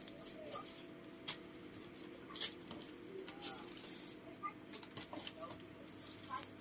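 Scattered light taps, crackles and rustles of a toddler's bare feet and hands on cardboard boxes and plastic-wrapped parcels, the sharpest about two and a half seconds in, over a steady low hum.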